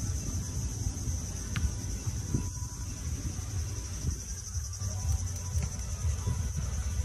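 Insects droning in a steady high-pitched buzz over a continuous low rumble.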